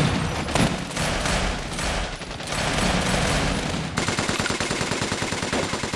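War-film battle soundtrack: heavy automatic-weapons fire, dense and overlapping, settling into a steady rapid machine-gun burst about four seconds in.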